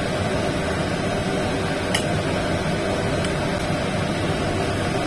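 Steady fan-like hum of room noise, with one light click about two seconds in as metal tongs touch the plate.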